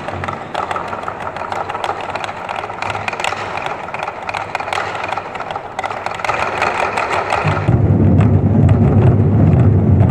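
Festive drum ensemble playing fast, dense drumming with many quick stick strikes. About three-quarters of the way through, the big drums come in with a loud, low rolling rumble.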